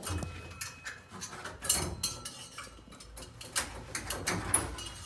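Hand tools and small metal parts clinking and knocking on a workbench, an irregular run of sharp clicks with the loudest knock about a third of the way in.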